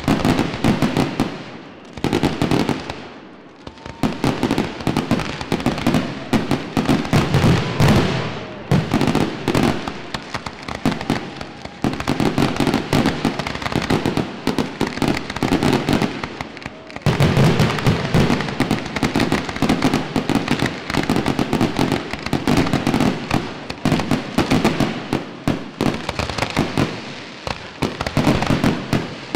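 Aerial firework shells bursting in a rapid, almost continuous barrage of bangs and crackle. The barrage eases briefly about three seconds in and is at its densest over the second half.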